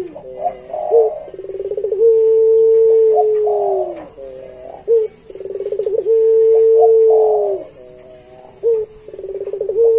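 Puter pelung, a domestic ringneck dove bred for its long coo, cooing over and over. Each phrase opens with a few short quick notes, then a long steady note that falls away at its end. Three such phrases come in close succession.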